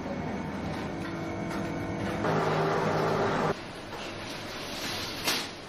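Steady machine hum and noise of pastry-workshop equipment, louder for about a second in the middle and then dropping back suddenly, with one sharp click near the end.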